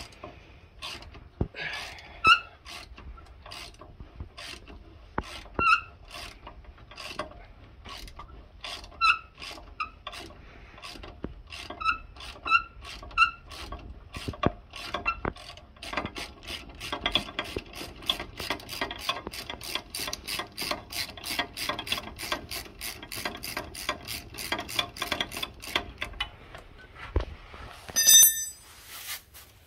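Ratchet wrench clicking as the pinch bolt is backed out of the upper ball joint on the steering knuckle. The clicks are irregular at first with a few louder metal-on-metal ticks, then settle into a steady run of about three a second, and a sharp ringing metal clink sounds near the end.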